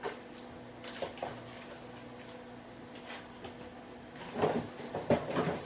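A few light clicks and knocks of things being handled, with a louder cluster of knocks and rustling near the end, over a faint steady hum.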